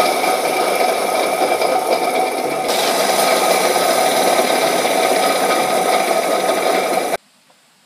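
Rebuilt Detroit Diesel Roots blower, governor end included, spinning fast: a loud, steady mechanical running noise with a few steady tones in it, which cuts off suddenly about seven seconds in.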